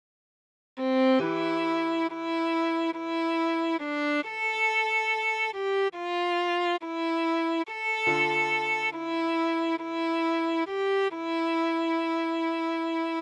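Viola melody played note by note in steady, evenly held notes over a held low accompanying note, starting about a second in after a short silence.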